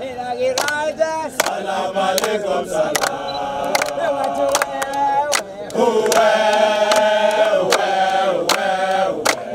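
A group of men singing a celebration chant together in harmony, with hand claps on the beat roughly every second. The singing swells louder about six seconds in.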